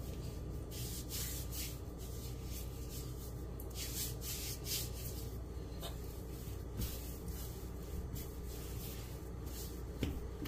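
Hands kneading stiff, floury cookie dough on a countertop: a string of brief, irregular rubbing and pressing strokes as the palms push and fold the dough and rub flour off the fingers.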